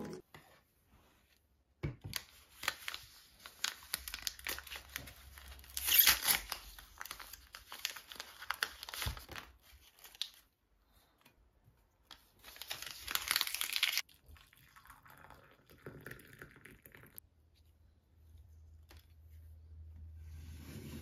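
Plastic packaging crinkling and rustling as it is handled for several seconds. Then a paper tea-bag sachet is torn open with a short ripping sound. A faint low hum sits under the last few seconds.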